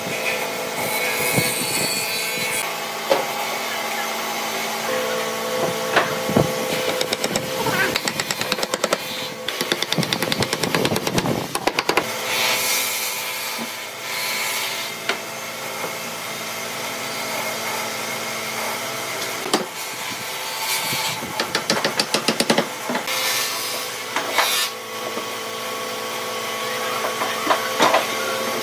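Workshop handling of wooden chair parts: scattered knocks and clatters as wooden pieces are set down and fitted together, with fast runs of rattling clicks in places, over a steady background hum.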